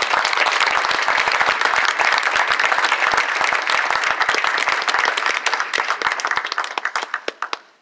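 Audience applauding: a dense, steady patter of many hands clapping that thins out to a few last claps near the end and stops.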